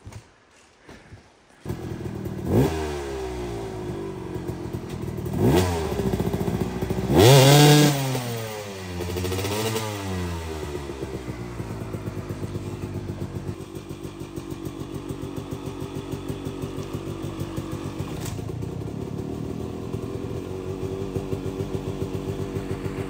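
Dirt bike engine starting after a moment of quiet, blipped with several sharp revs that rise and fall, the biggest near the middle, then settling into a steady idle with regular pulses.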